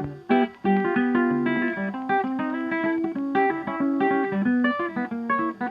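Background music: a gently plucked acoustic guitar playing a steady run of notes.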